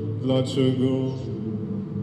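A man's voice saying one word of Polish, 'Dlaczego?', into a microphone over a steady electronic drone of held low tones.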